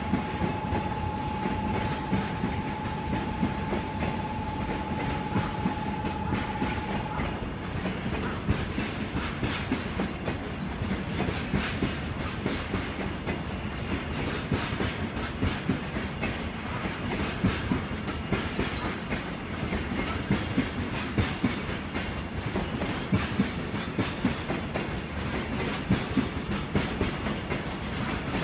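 Long freight train of container wagons rolling past, its wheels clicking steadily over rail joints and points. A steady high whine sounds for the first seven seconds or so, then stops.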